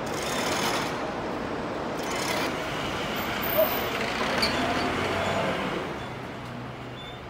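City street traffic noise, a steady hum of passing vehicles, with a brief click about halfway through. The noise drops lower near the end.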